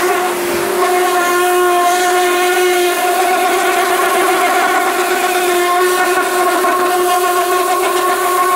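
Pressure washer running steadily: the water jet hissing against the stripped steel of the truck cab over the pump's even whine. The level dips briefly just after the start, then holds.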